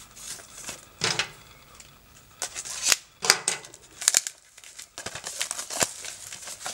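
Plastic shrink-wrap being cut and peeled off a metal steelbook case: crinkling and tearing in several short bursts, the loudest about three seconds in.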